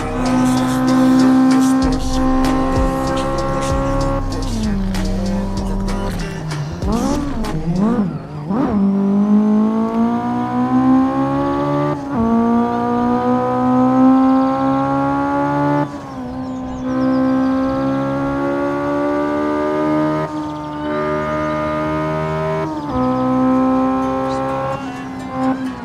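Honda car engine revving hard and accelerating through the gears. Its pitch climbs steadily for several seconds, then drops at each gear change, five or six times over. About six to eight seconds in there is a wavering squeal.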